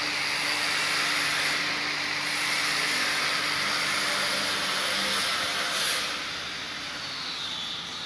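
A power tool's electric motor running steadily with a high hiss and a faint hum, easing off a little about six seconds in.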